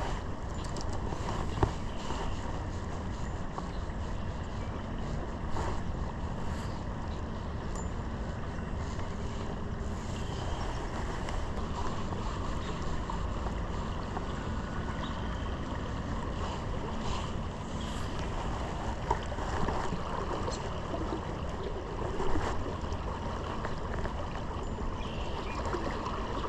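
River water rushing steadily over rocks, with wind on the microphone. A few short knocks stand out now and then.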